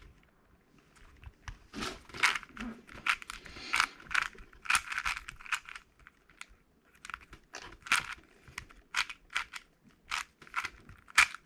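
Magnetic 4x4 speed cube, a MoFang JiaoShi RS4 M, being turned quickly: a rapid, irregular string of plastic clacks and scrapes as the layers snap round. It turns loudly, which the owner puts down to little lubricant.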